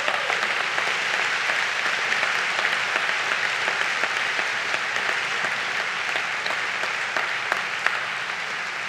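A large seated audience applauding, many hands clapping in a dense steady patter that fades slightly toward the end.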